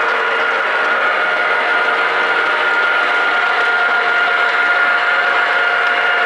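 O gauge model train running on the layout: a steady whir of the locomotive's motor and wheels on the track, with a steady high hum on top.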